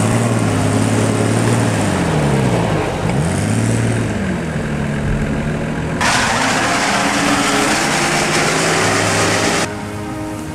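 Off-road 4x4's engine revving up and down again and again as it works in deep mud. About six seconds in a loud rushing hiss joins for a few seconds, then the sound drops off suddenly near the end.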